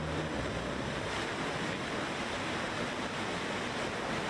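New Shepard booster's single BE-3 hydrogen-oxygen rocket engine firing at liftoff: a steady rushing noise.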